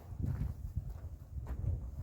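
Irregular low rumble on the microphone, with a few faint clicks.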